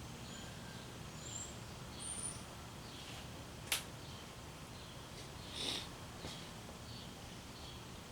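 Canarm 56-inch industrial ceiling fan running with a steady low hum, faint high bird-like chirps over it, and one sharp click a little over halfway through.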